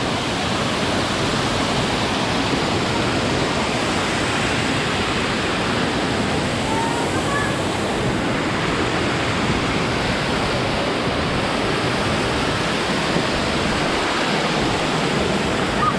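Steady, even rush of water pouring down a waterfall.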